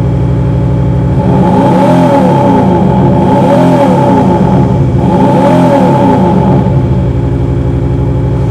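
Maxhaust active-sound exhaust speaker on a diesel Maserati Levante, playing a synthetic V8 exhaust note in Sport mode over the 3.0-litre twin-turbo V6 diesel. It idles, is revved three times, and settles back to a steady idle near the end.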